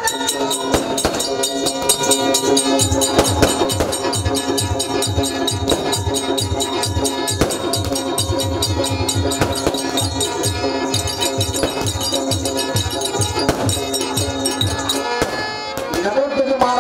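Live drama music: a held chord sounds throughout over fast drumming and rapid high percussion clicks. Deep, even drum beats join in about three seconds in.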